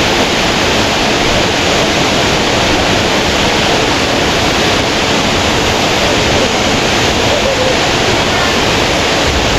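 Waterfall: a steady, loud rush of falling water, close to the microphone.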